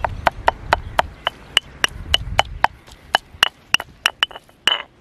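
A pestle knocking repeatedly in a stone mortar, about four to five sharp knocks a second, each with a slight ring, as a wet green paste of coriander, mint and green chilli is pounded.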